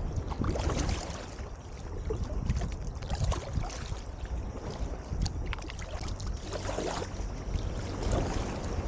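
Wind buffeting the microphone on a kayak, with water lapping and splashing against the hull in irregular surges and a few light knocks.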